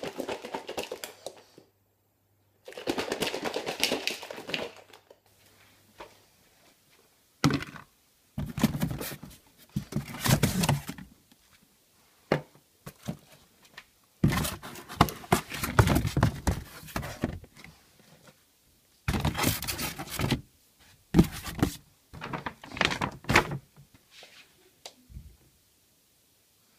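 Irregular bursts of knocks, thuds and handling noise as items are moved about in a cupboard and the camera is carried close by.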